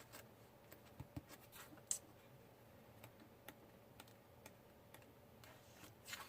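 Faint scattered light ticks and taps from sheets of patterned scrapbook paper being leafed through and handled in a paper pad.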